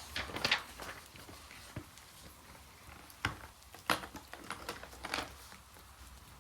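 A run of short knocks and rustles, a cluster at the start, sharp knocks near the middle and another cluster near the end, over faint steady rain.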